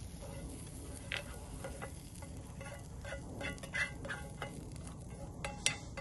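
A cooking utensil scraping and tapping against camp cookware, a run of small clinks and scrapes with a few sharper knocks near the end.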